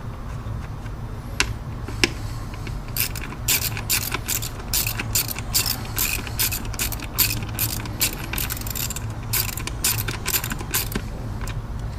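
Hand ratchet wrench clicking in quick runs of strokes, tightening the bolt of a new ignition coil on an Audi 4.2 V8. Two single clicks come first, then about eight seconds of rapid ratcheting with short pauses, over a steady low hum.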